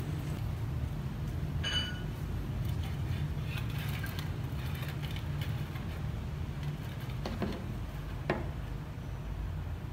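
Bonsai wire and hand tools being handled: a short ringing metallic clink, light scraping as the wire is wrapped around a branch, and two sharp snips near the end as wire cutters cut the wire. A steady low rumble lies under it all.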